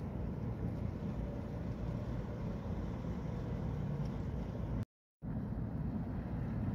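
Steady low rumble of distant vehicle engines carrying across open water. The sound cuts out completely for a split second about five seconds in.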